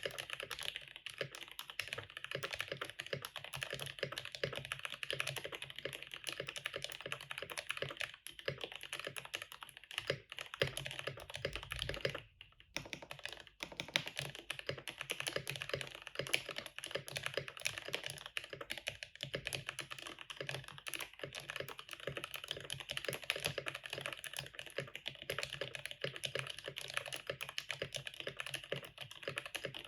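Continuous typing on a handmade cardboard-cased 60% mechanical keyboard with Gateron Milky Yellow linear switches and PBT keycaps: a dense, steady run of key clacks, with a short pause about twelve seconds in.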